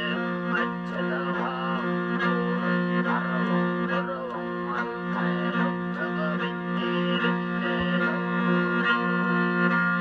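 Mongolian folk music: a morin khuur (horsehead fiddle) bowed over a steady drone, with a plucked lute accompanying.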